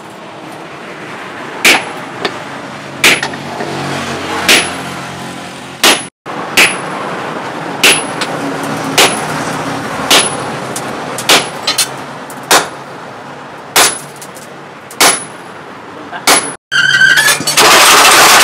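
Hammer blows on red-hot bearing steel on an anvil, a sharp metallic clang with a short high ring about once every second and a quarter, over a low steady background hum. Near the end a loud steady rushing noise takes over.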